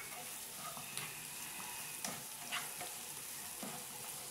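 Chopped onions, green chillies and spring onion sizzling in hot oil in a nonstick pan, with a steady hiss, while a perforated spatula stirs them and scrapes against the pan a few times.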